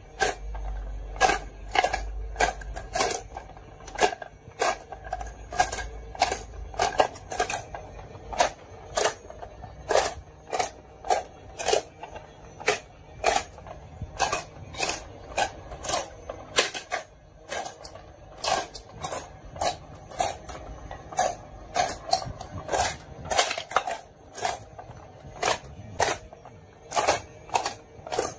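Glass marbles clicking one after another into the holes of a plastic toy game board, each landing with a sharp click and a brief ring, about one to two a second.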